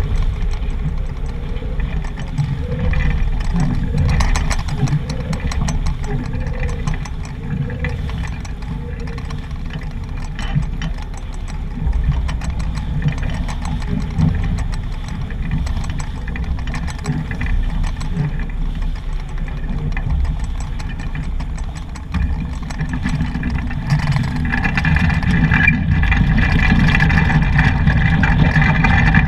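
Wind buffeting the microphone over water rushing and splashing along the hull of a sailboat heeled under sail, growing louder near the end.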